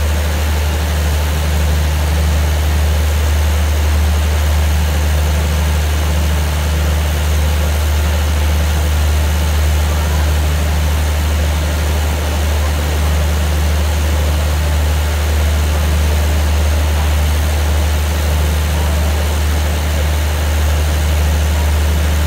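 Steady low diesel drone of a standing passenger train idling at the platform, with no change in pitch or loudness.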